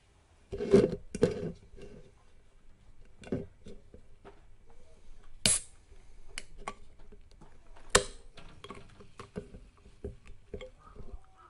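Irregular knocks, clicks and rustles close to the microphone: two loud ones about a second in, then sharp clicks at about three, five and a half and eight seconds, with smaller ticks between.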